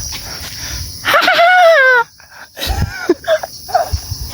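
A person's voice: a drawn-out vocal sound falling in pitch about a second in, then a few short voiced bits. A steady high insect buzz runs under it, with some low rumble at the start.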